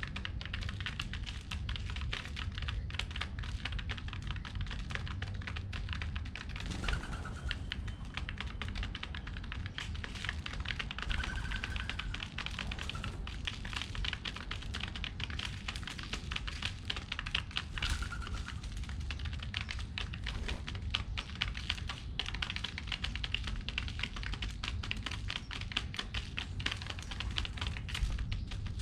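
Pigeons pecking seeds off hard ground: a dense, continuous run of fast little taps and clicks. A few brief faint chirps come through over it.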